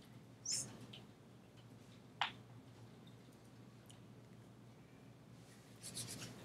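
Faint room tone with a steady low hum, broken by a few short clicks: a light one about half a second in and a sharper, louder one a little over two seconds in, with a soft rustle near the end.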